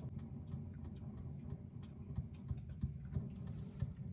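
Dometic RV refrigerator's propane spark igniter clicking over and over as it tries to light the burner. The burner isn't catching, which the owner puts down to a dirty igniter that needs cleaning.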